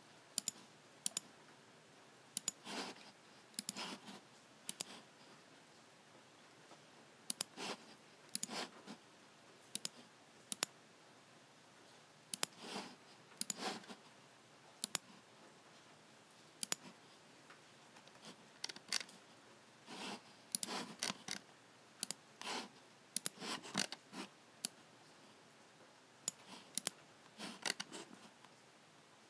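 Logicool (Logitech) G7 computer mouse buttons clicking at an irregular pace, single clicks and quick pairs, some sharp and some softer.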